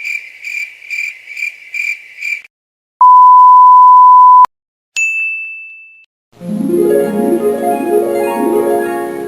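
A cricket chirping about twice a second, then a loud steady censor beep for about a second and a half, then a single notification ding that fades away, and from about six seconds in, a flowing harp-and-piano arpeggio used as a dream-sequence effect.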